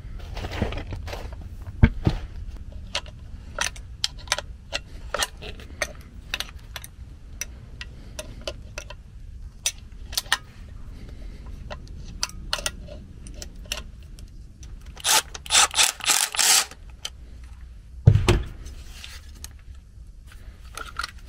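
Metal parts of a replacement blower motor and its mounting hardware being handled, with a string of light clicks and clinks. A quick run of louder rattling clicks comes about two-thirds of the way through, and a single thump follows shortly after.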